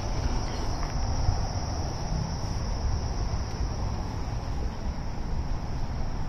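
Steady outdoor insect chorus, an even high-pitched buzz that does not change, over a low rumble.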